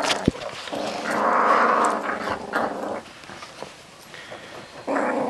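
Young puppy growling for about two seconds, starting about a second in, while guarding a large milk bone from other puppies: resource guarding of a chew.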